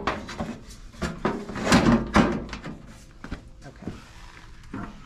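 The stainless-steel drip tray of a Nuova Simonelli Appia II espresso machine being slid and set into place, making a run of metal clatters and knocks. The knocks are loudest about two seconds in, then fade to a few light ticks.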